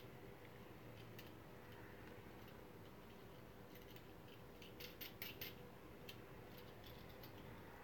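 Faint clicks of brass binding-post hardware being handled and its nut threaded on by hand on a speaker wall plate, with a small cluster of clicks about five seconds in; otherwise near silence.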